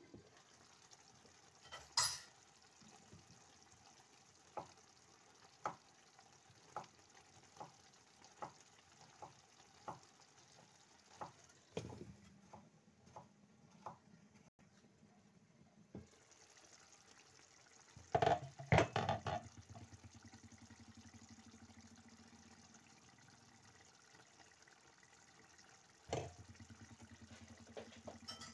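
Pot of chickpea and potato stew simmering under a glass lid, with small pops or ticks about once a second. There is a sharp clink about two seconds in, and louder clatters of the lid and pot around two-thirds of the way through and again near the end.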